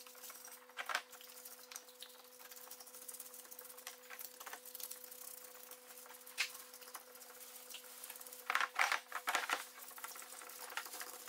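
Brush scrubbing a Subaru EJ20 aluminium engine block in a parts-washer tub, with cleaning fluid running from the brush, over a steady faint hum. Scattered light scrapes and clicks, then a cluster of louder knocks near the end as the heavy block is turned over in the tub.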